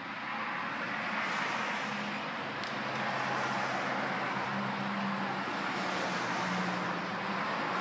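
Road traffic going by: a steady rush of tyres with a faint low engine hum, swelling a little about a second in.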